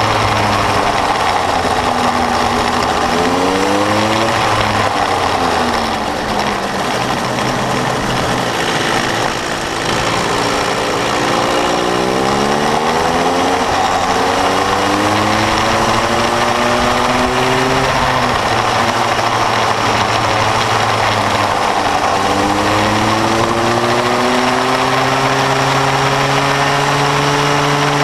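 Small two-stroke Bambino go-kart engine running hard onboard. Its pitch climbs under acceleration several times and falls back between climbs, over constant road and wind noise.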